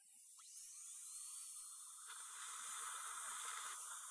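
Dental handpiece with an ultra-fine diamond bur, contouring porcelain veneers: a faint whine rises in pitch over the first second as it spins up, then it runs steadily with a high hiss while grinding.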